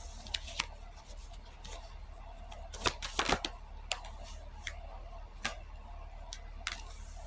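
Reading cards being handled, shuffled and drawn: scattered light clicks and snaps, with a small cluster about three seconds in, over a steady low hum.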